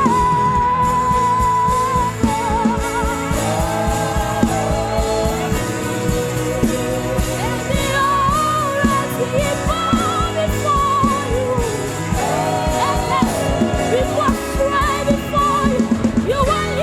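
Live gospel worship music: a band playing under a lead singer who holds long notes with a wavering vibrato, over a steady beat.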